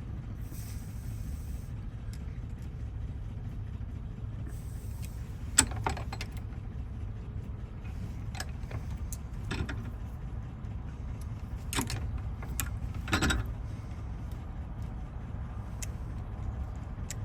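Scattered sharp metal clicks and taps of a tool working a bent Chevy Silverado door lock face straight, about half a dozen spread out, the loudest about five and a half seconds in, over a steady low hum.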